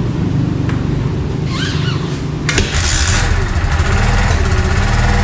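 Kawasaki Barako 2's single-cylinder four-stroke engine on its first start, running unevenly at first, then, after a sharp click about two and a half seconds in, running louder and steadier at idle. It has just been kick-started, and it is running poorly on choke.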